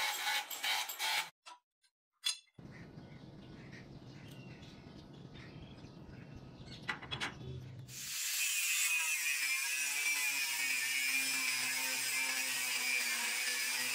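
A quick run of metallic clicks, then a few seconds of quieter low scraping, then from about eight seconds in an electric grinder working steadily on the leaf-spring steel blade, with a steady hiss and a high ringing whine.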